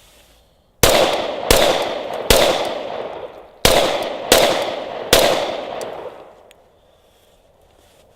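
Glock 21 Gen 4 .45 ACP pistol firing six shots in two quick strings of three, each shot ringing out briefly, with a short pause between the strings.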